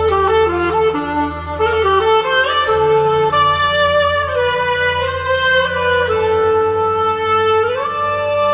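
Instrumental music: a moving melody over a sustained bass line, stepping up into long held notes near the end.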